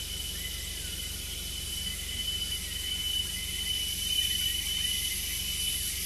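Insects calling: one steady high-pitched tone held without a break over a dense, even insect hiss, with a few faint short chirps and a low rumble underneath.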